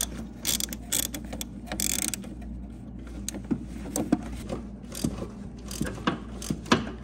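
Hand ratchet clicking in short runs, then scattered clicks and knocks, as the nuts holding a new clutch master cylinder to the firewall are snugged up.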